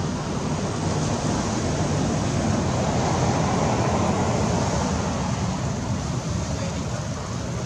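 A steady rushing noise with a low hum beneath it. It swells in the middle and eases off toward the end.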